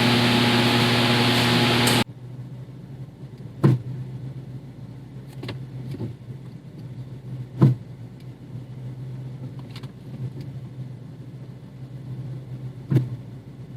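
A loud steady rushing noise that cuts off abruptly about two seconds in, then a BMW 428i running with a low steady hum and a few sharp underbody knocks, three of them plain and the loudest about halfway through: the clunk the car makes when pulling off or reversing.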